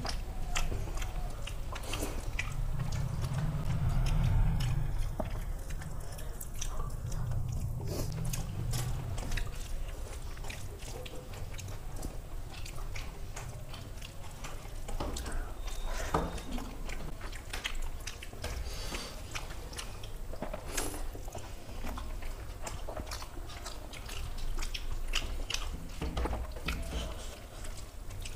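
Two people eating rice and dal with their hands: close chewing and wet mouth sounds, with many small clicks and the squish of fingers working rice into dal on steel plates.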